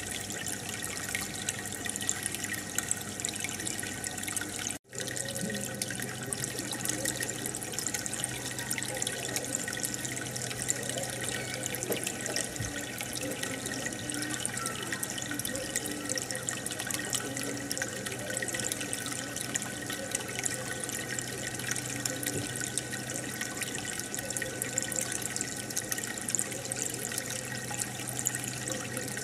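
Steady bubbling and trickling of aquarium water from the air bubbler. A brief cut-out about five seconds in, after which a low hum runs under the bubbling.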